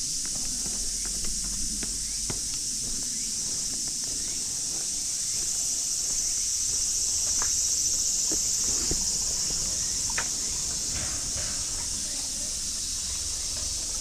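A loud, steady chorus of cicadas, high and shrill, swelling a little midway. Scattered soft crunches of footsteps on gravel lie beneath it.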